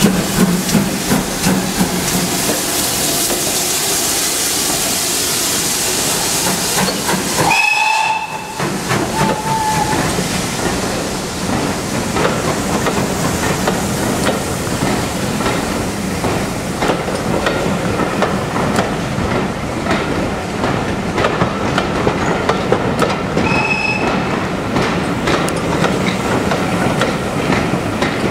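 GWR steam tank locomotive working at low speed: a steady rush of steam hiss with a rapid run of exhaust beats and clanks, and two brief high-pitched tones, about eight seconds in and again near twenty-four seconds.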